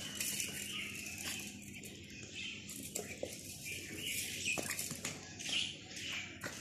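Domestic ducks feeding: irregular rustling of bills working through feed, with a few sharp clicks of bills striking the metal feed bowls.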